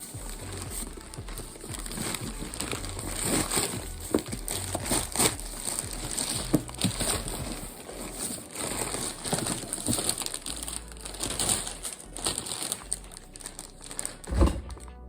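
Parcel packaging crinkling and rustling as it is handled and pulled open, with scattered small clicks and knocks and a thump near the end.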